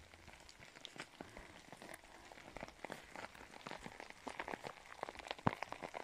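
Meltwater dripping from snow-laden trees: an irregular patter of drops, growing denser in the second half.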